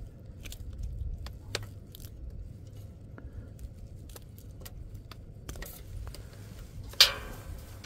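Small clicks and scrapes of fishing tackle being handled over a low steady rumble, with one sharp knock about seven seconds in.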